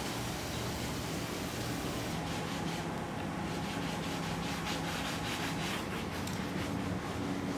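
A long-handled brush scrubbing a bus windshield in rapid back-and-forth strokes, starting about two seconds in and stopping near the end, over a steady low hum.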